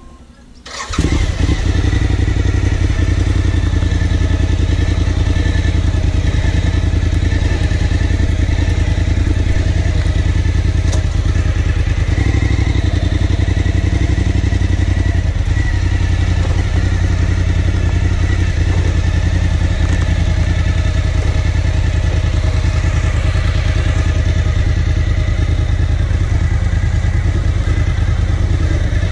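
Suzuki DL1000 V-Strom's V-twin engine starting about a second in, then idling steadily.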